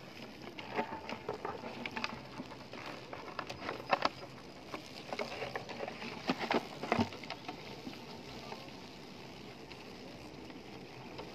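Irregular soft clicks, crackles and rustling as June beetles are grabbed by hand off a cluster on a stick among dry grass, with a few sharper clicks about four and seven seconds in.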